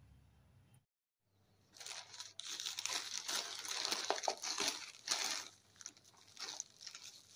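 Plastic courier mailer bag and bubble wrap crinkling and rustling as a parcel is opened and its contents pulled out by hand. It starts about two seconds in.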